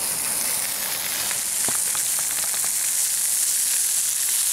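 Burgers sizzling in a frying pan over a wood campfire: a steady hiss with a few small crackles.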